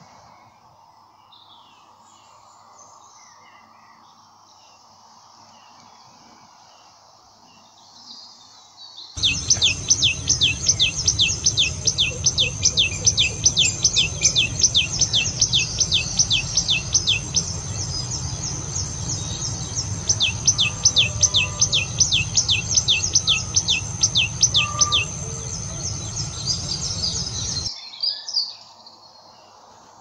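A tailorbird singing: a loud run of sharp, rapidly repeated notes, about three or four a second, with a short break partway through, over low background noise. Before it, only faint, scattered bird chirps.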